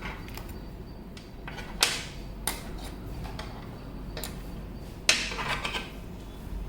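A few small clicks and knocks of hard objects being handled and set down on a surface, the loudest with a brief scrape about five seconds in.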